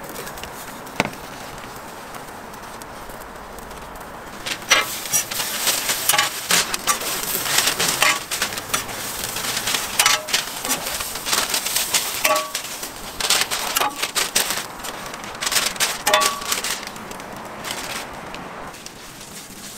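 Paper sandwich wrappers rustling and crinkling in quick, irregular bursts as hot sandwiches are wrapped by hand, after a single sharp click about a second in.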